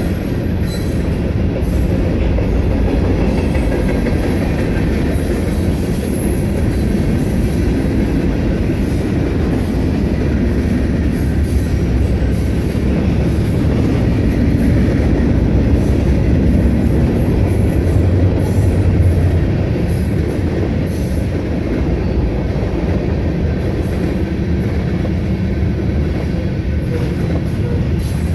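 A train rolling past on the tracks: a long, steady rumble of rail cars with wheel noise on the rails, and no horn sounding.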